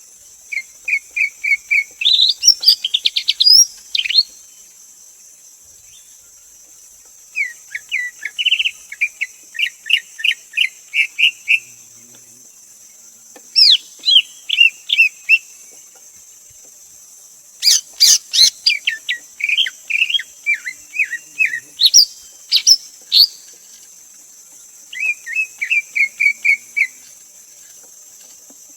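Greater green leafbird singing: five bouts of rapid, repeated whistled notes, each lasting a few seconds with short pauses between. The loudest bout comes about 18 seconds in.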